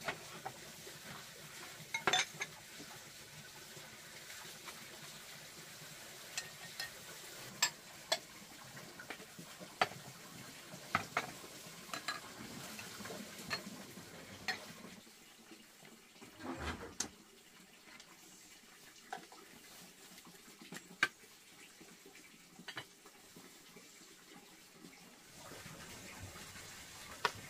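Dishes, pots and utensils clinking and knocking every second or two, over a faint wash of water.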